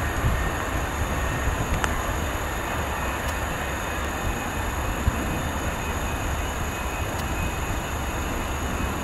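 Boeing 747-245F's four jet engines running at taxi power: a steady jet noise with a deep rumble underneath.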